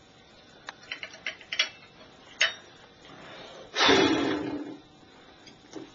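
Light clicks and taps of a metal utensil against a porcelain toilet bowl: a quick run of clicks early, one sharper click a little later, then a second-long rush of noise about four seconds in.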